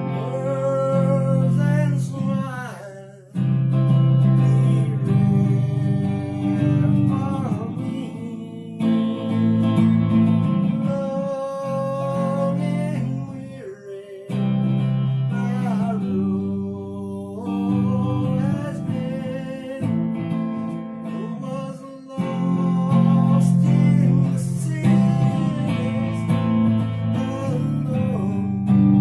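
Acoustic guitar strummed with a voice singing over it, with short breaks between phrases.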